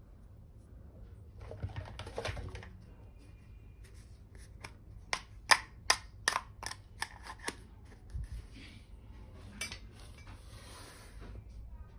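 Hands unboxing and handling a miniature plastic toy kitchen set. There is soft rustling, then a quick run of about ten sharp clicks and taps, then more rustling.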